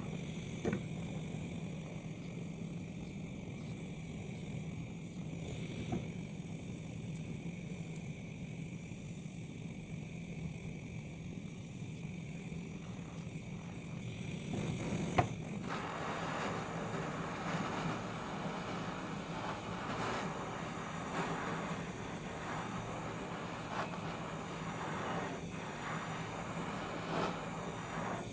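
Torch flame running steadily as it scorches the sides of a teak block. A sharp knock comes about halfway through, after which the hiss turns louder and rougher, with scattered clicks.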